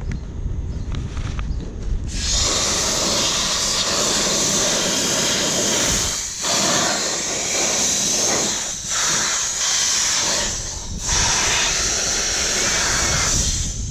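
Compressed air hissing in long blasts as it blows dust out of a UPS. The air comes on about two seconds in, cuts out briefly a few times, and stops just before the end.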